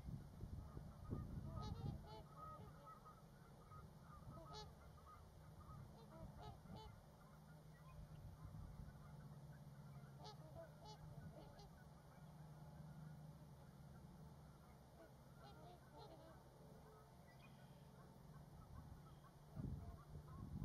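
Faint chorus of many distant birds honking over a low steady rumble, with a few short high bird trills now and then.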